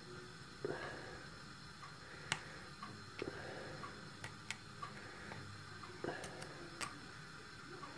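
Irregular small metallic clicks and ticks of a hook pick and tension wrench working the pins of a spool-pinned challenge padlock held in the hand, the lock sitting in a false set.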